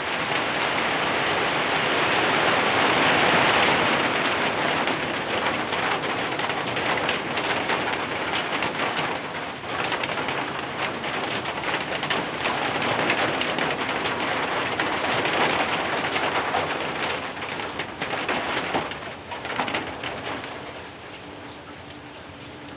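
Rain falling in a dense, even downpour. It swells louder a few seconds in, then eases noticeably near the end.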